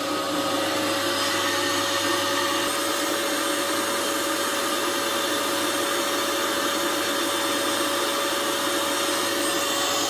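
Vacuum cleaner running steadily, an even whirring noise with a constant whine in it.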